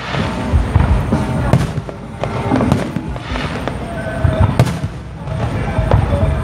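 Fireworks display: aerial shells bursting in an irregular run of bangs and crackles.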